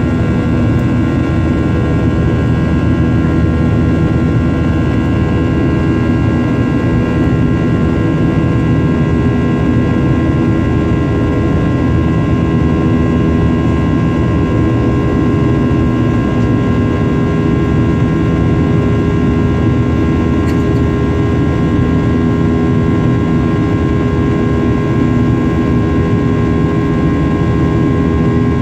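Jet airliner engines heard from inside the passenger cabin: a steady loud rush with several steady whining tones over it, unchanging throughout.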